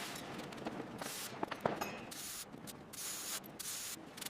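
Pressure washer spraying water onto a motorcycle, a steady hiss that cuts out briefly a couple of times.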